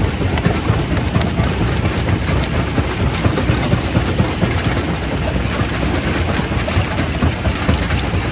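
Quarry primary rock crusher running, a steady heavy rumble with a dense, irregular rattle of stone being crushed.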